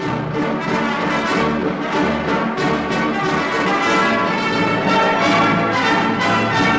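Orchestral music with brass instruments playing.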